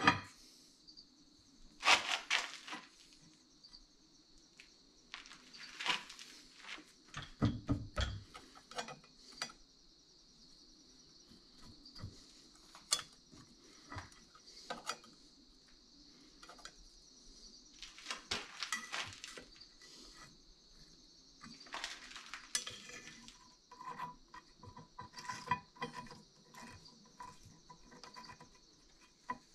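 Steel plate and steel hold-down clamps being set up on a mini milling machine's table: irregular metallic clinks, knocks and scrapes as the metal is handled, over a faint steady high-pitched hiss.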